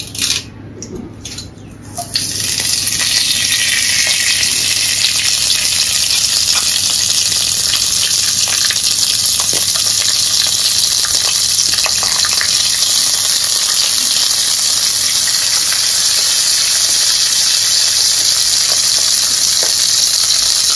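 Fresh curry leaves sizzling in hot coconut oil in a wok: a loud, steady sizzle that starts suddenly about two seconds in as the leaves hit the oil.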